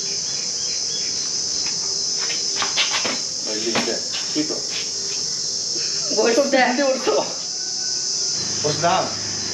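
Steady high-pitched insect chorus that runs without a break throughout.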